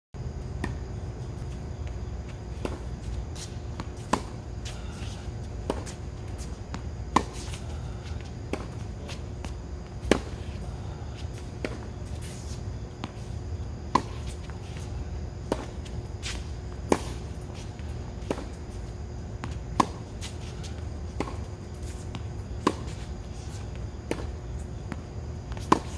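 Tennis balls struck by a racket during a groundstroke drill: sharp pops about every second and a half, alternating louder and fainter, over a steady low rumble.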